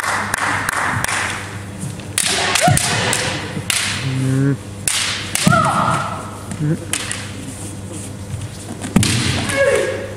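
Kendo bout: bamboo shinai knocking together and against armour in a series of sharp clacks, with thuds of feet stamping on the wooden floor. Short shouts (kiai) come at a few points.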